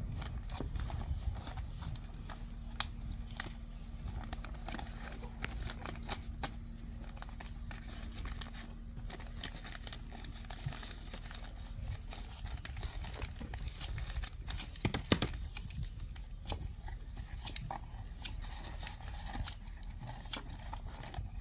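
Handling noise: paper crinkling and scattered small clicks and taps of hands working paper and small metal engine parts, with one sharper click about two-thirds of the way through, over a steady low rumble.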